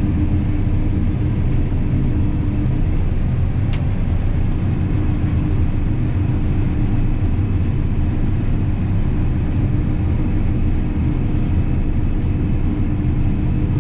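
John Deere combine harvester running steadily while cutting soybeans: a constant low machinery drone with a steady hum, and one faint click about four seconds in.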